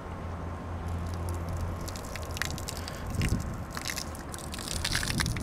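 Submersible solar well pump soft-starting: a low hum as the motor ramps up to speed, then water from the hose starting to gush and splatter, growing louder toward the end.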